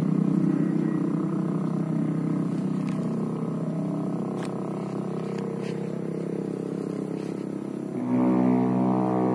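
Engine running steadily, with a louder engine sound coming in about eight seconds in.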